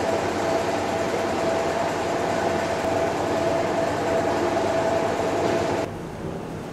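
Coin-laundry washer-dryers running: a steady mechanical rumble with a constant hum through it. It drops away suddenly about six seconds in, leaving a quieter hiss.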